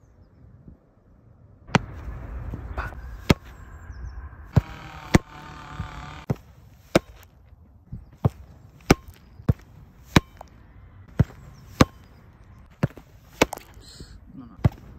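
Football being kicked and caught in latex-palmed goalkeeper gloves, over and over: about sixteen sharp slaps, many in pairs a little over half a second apart, the strike of the kick and then the ball smacking into the gloves.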